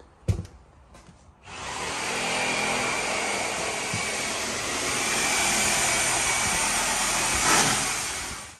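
A single knock, then about a second and a half in a loud, steady whooshing motor starts and runs evenly, cutting off abruptly at the end.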